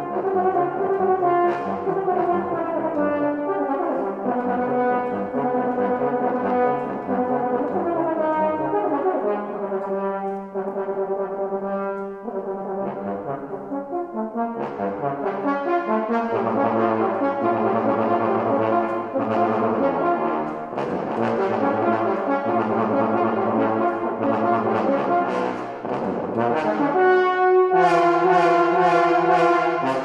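Tenor and bass trombone playing a duet, two lines of held and moving notes overlapping. In the second half the bass trombone sustains low notes under the tenor, and the playing grows louder and brighter near the end.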